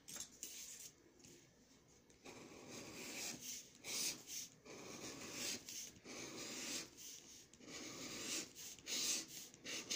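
Scratch-off lottery ticket being scratched: repeated short rubbing strokes scraping off the coating, getting louder about two seconds in.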